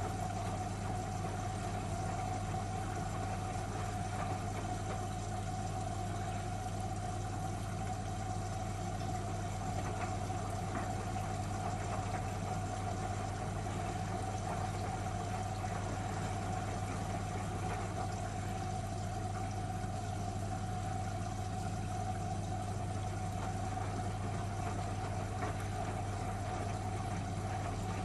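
Miele W1 washing machine running with a steady, even hum.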